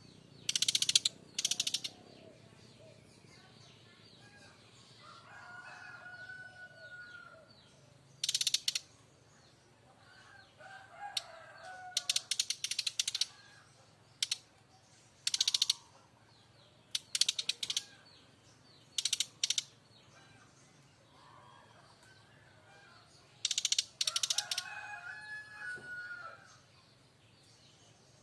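Brown-chested jungle flycatcher giving its loud, harsh rattling 'kretek' call: short bursts of rapid clicks, each under a second, repeated about eight times with gaps of a few seconds.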